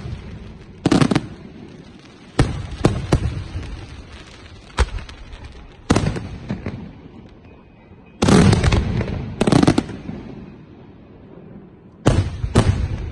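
Fireworks display shells going off in clusters of loud bangs, each followed by a fading, echoing rumble; the densest, loudest volley comes about eight to ten seconds in.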